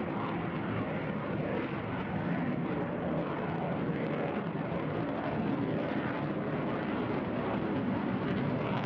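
Fixed-wing aircraft engine noise, a steady drone that holds at an even level throughout.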